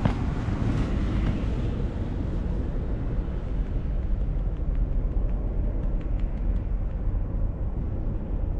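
Wind buffeting an action camera's microphone: a steady, fairly loud low rumble.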